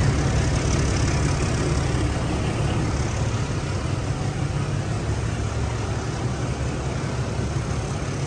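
Passenger train with LHB coaches pulling slowly into a station platform: a steady low engine hum over the rumble of the coaches rolling past, slowly getting quieter.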